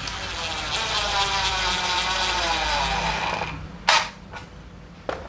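DeWalt DCF787 cordless impact driver driving a drywall screw into plywood. It starts suddenly and runs for about three and a half seconds, its whine dropping slightly in pitch as the screw goes in, then stops. A sharp click comes about half a second later and another near the end.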